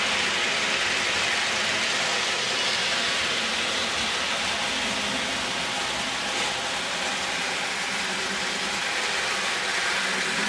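Marx toy electric train running steadily around its track, pulled by a custom Marx cab-forward locomotive: a continuous even whir of the motor and the metal wheels of a string of freight cars on the rails.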